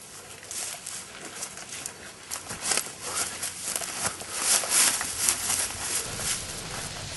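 Footsteps running through tall grass, with the grass swishing and rustling in quick irregular crunches that grow louder as the runner comes close.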